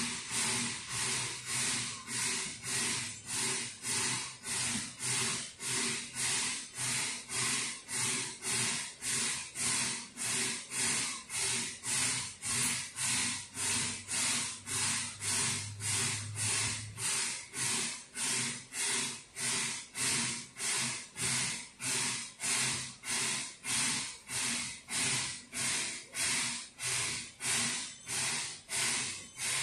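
Narrow-gauge steam locomotive chuffing out of sight, in an even rhythm of hissing beats at nearly two a second, steady in level throughout.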